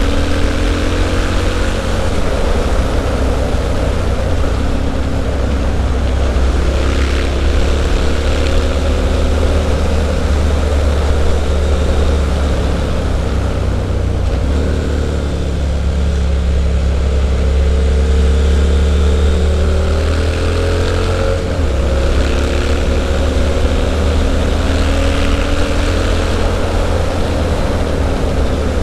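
Triumph Street Scrambler's 900 cc parallel-twin running through an aftermarket Zard exhaust while riding. The engine note rises and falls repeatedly as the bike accelerates and changes gear, with a few sudden drops in pitch, over a heavy low rumble.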